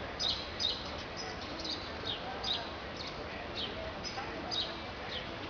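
Small birds chirping: repeated short, high, falling chirps, about two a second at uneven spacing, over steady city background noise.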